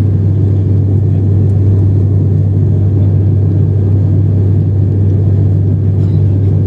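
Turboprop airliner's engine and propeller heard from inside the cabin: a loud, steady low drone with a strong, even hum.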